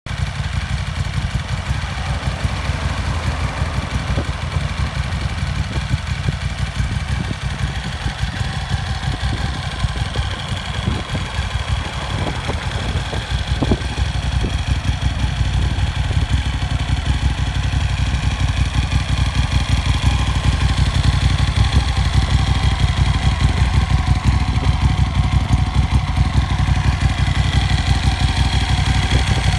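Moto Morini Milano's 1187cc V-twin engine idling steadily, a little louder in the second half.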